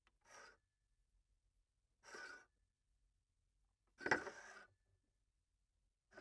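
A glass cup slid in short strokes across a table top: three brief scrapes about two seconds apart, the third the loudest and starting with a sharp knock, and a fourth slide beginning at the very end.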